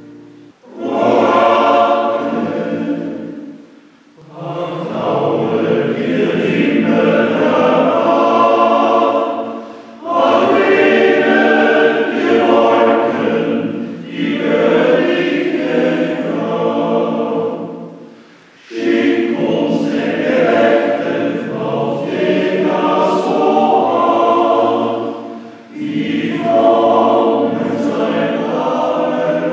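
Men's voice choir singing a slow piece in long phrases, with brief pauses for breath between them.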